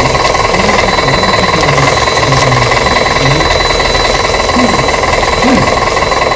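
RC tronton truck running: a loud, steady, rapid mechanical rattle with a constant whine underneath.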